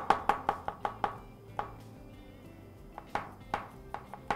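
A chef's knife cutting garlic on a cutting board: fast, even strokes, about six a second, that stop about a second in, then a few single cuts near the end. Faint background music underneath.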